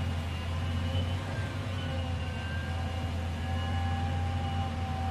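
Caterpillar hydraulic excavator's diesel engine running with a steady low rumble, with thin whining tones that shift in pitch every second or two as the arm works.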